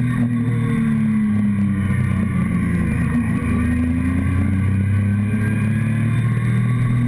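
Motorcycle engine running under way, heard from a camera on the fuel tank, with steady wind and road noise; the engine note wavers and dips briefly about three seconds in.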